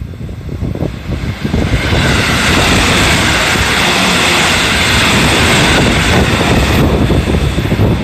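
Electric multiple-unit passenger train passing close at speed: a loud, steady rush of wheels on rail. It builds over the first two seconds, and its higher hiss cuts off abruptly near the end as the train clears.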